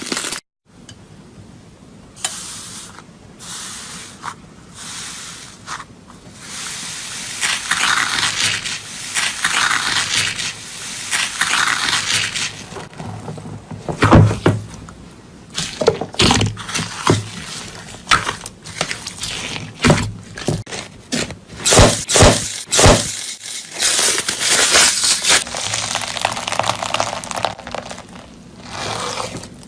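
Slime being handled, squishing, crackling and scraping, with a run of sharp pops and clicks in the second half.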